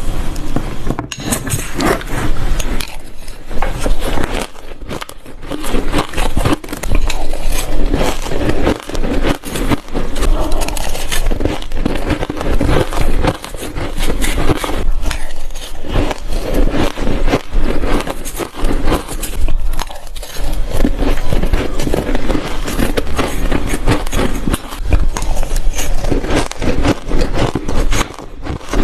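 Ice being bitten and chewed, a continuous run of loud, irregular crunching and crackling.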